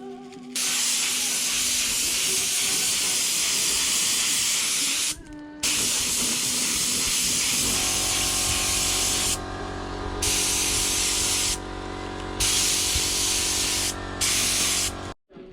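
Air spray gun spraying thinned metallic black paint in a series of long trigger pulls, a loud hiss that stops and starts again four times. A steady machine hum joins about halfway through.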